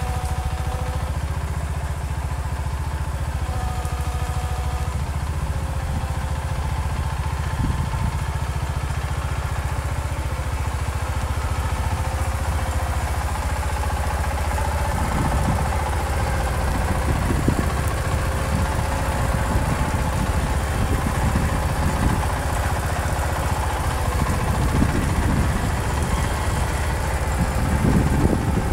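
Garden tractor engine running steadily, with a whine that comes and goes. Irregular knocks and rattles join it from about halfway on.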